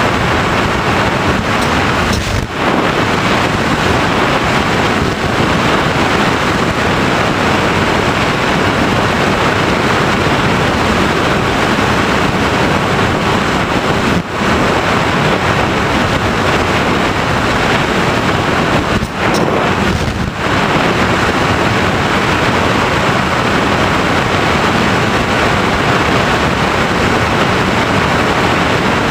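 Steady rushing wind noise on the onboard camera microphone of an FPV Raptor model plane in flight, dipping briefly four times.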